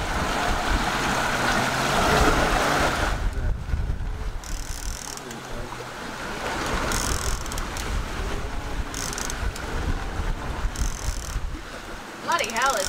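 Wind buffeting the microphone and sea water rushing past a sailing yacht's hull under way, a steady noisy rush with a deep rumble, strongest for the first few seconds. Short high hissing sounds come every couple of seconds, and a voice calls out near the end.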